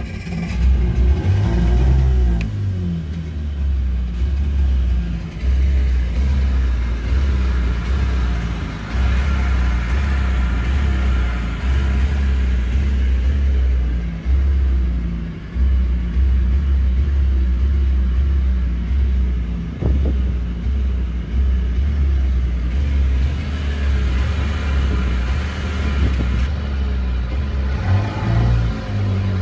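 Rescue boat's outboard motor running loudly at a steady speed, revved up over the first couple of seconds and briefly again near the end.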